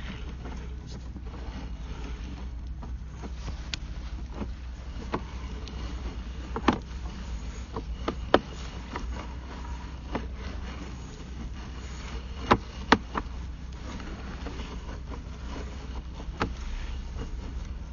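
Sewer inspection camera being pushed down a drain line on its push rod: a steady low hum with scattered sharp clicks and knocks, a few of them louder than the rest.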